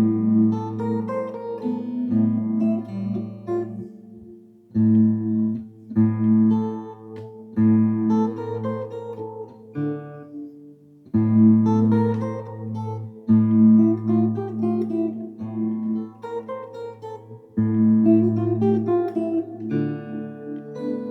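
Guitar played alone: a slow run of strummed and picked chords over held low notes, in phrases with a few brief breaks between them.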